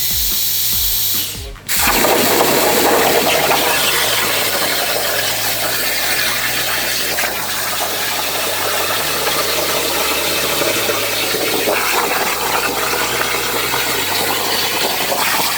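Plasma cutter cutting sheet metal: a loud, steady hiss that starts abruptly about two seconds in and keeps going, over background music.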